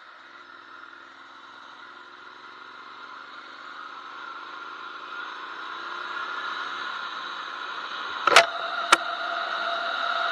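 Motorcycle speeding up, its engine note rising slowly while wind noise grows steadily louder. Near the end come two sharp knocks about half a second apart, the loudest sounds.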